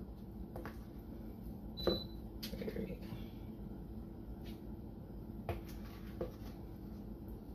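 A few light, scattered taps and clicks of a serving spoon against a plastic mixing bowl as cake batter is scooped out and spooned into paper liners in a metal muffin tin.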